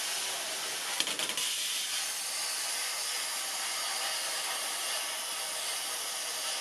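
Varteg Plasma 40 plasma cutter cutting at about 30 amps: a steady hiss from the torch's arc and air jet, with a few short crackles about a second in.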